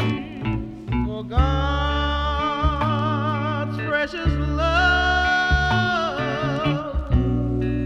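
Sweet soul gospel record from 1979 playing: a bass line under a lead line of long, wavering held notes, the longest held for about a second and a half near the middle.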